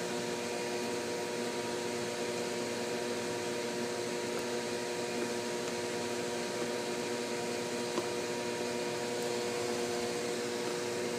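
Steady hum of a fan-like motor running: several held tones over a faint hiss, with one light tap about eight seconds in.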